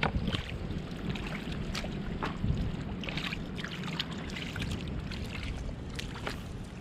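Bare hands squelching and splashing through soft mud and shallow water, a scatter of short wet strokes, over a steady low rumble of wind on the microphone.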